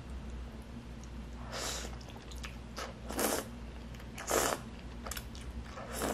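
A person slurping soupy instant noodles off chopsticks, four short slurps about a second and a half apart.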